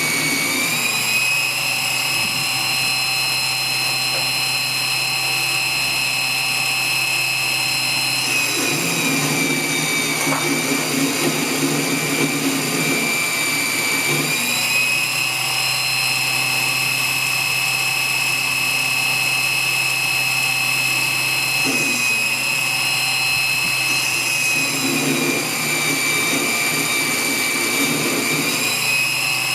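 CNC-converted 7x14 mini lathe running: a steady machine whine made of several high tones that shift up and back down in pitch every few seconds as the motors change speed.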